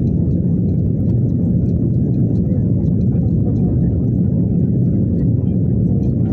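Steady low rumble of an airliner in cruise heard inside the cabin: engine and airflow noise.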